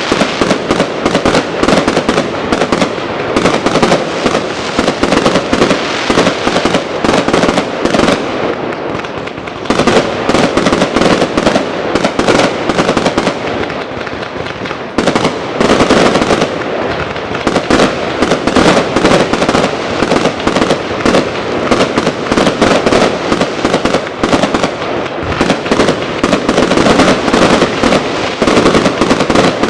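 New Year fireworks and firecrackers going off in a dense, near-continuous barrage of loud bangs and crackles, easing briefly twice before building back up.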